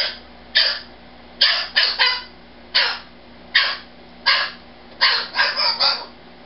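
Umbrella cockatoo screeching: about a dozen short, harsh screams, some single and some in quick runs of two to four. It is agitated screaming, which the owner puts down to the bird being offended at not getting its nightly good-night ritual.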